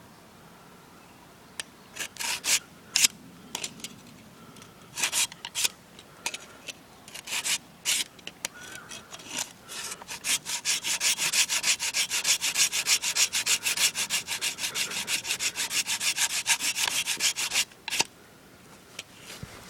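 Hand saw cutting into a tree: a few short, uneven strokes at first, then a long run of fast, even back-and-forth strokes that stops suddenly near the end.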